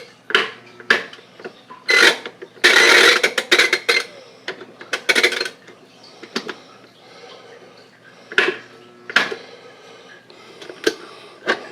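Washing machine controls being worked to restart it: a run of sharp, irregular mechanical clicks, with a louder rushing burst lasting about a second, about three seconds in.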